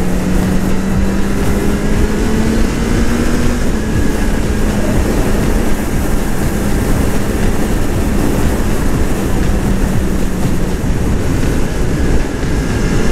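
Honda CB1000R's inline-four engine pulling at road speed, its note rising gently over the first few seconds and then holding steady, under heavy wind rumble on the microphone.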